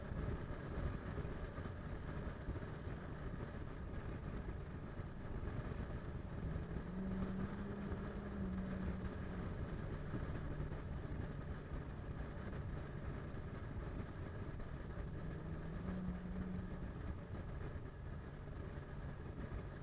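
Car driving at highway speed, heard from inside: a steady low engine hum over continuous tyre and road noise. The hum rises a little in pitch twice, for about two seconds each time, once in the middle and once near the end.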